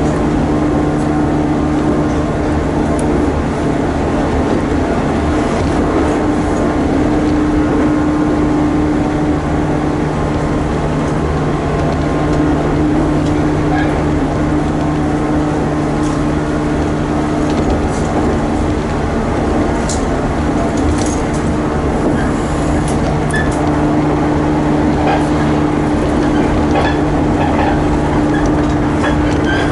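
Inside a moving electric commuter train: a steady running rumble with a low, even humming drone, and a few light clicks and rattles in the second half.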